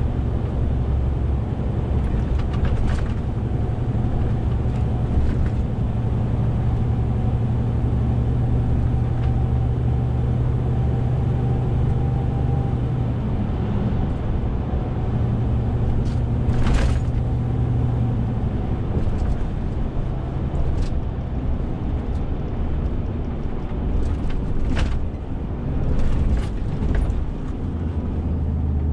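Renault T 460 truck's diesel engine running on the road, a steady low drone whose pitch steps a few times as the truck changes speed. A short hiss comes a little past the middle.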